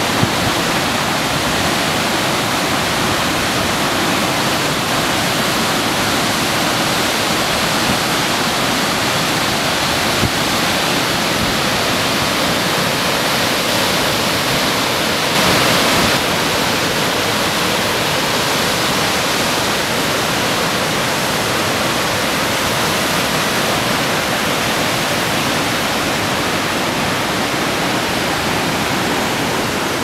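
Waterfalls on the River Swale, the river pouring over wide rock ledges in a steady rush of water, briefly a little louder about halfway through.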